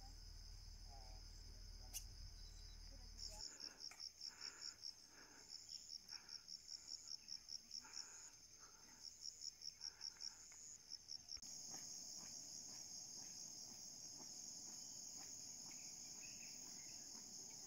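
Faint insect chorus: a steady high-pitched trill that pulses at about six beats a second in runs from about three to eleven seconds in, then continues without a break.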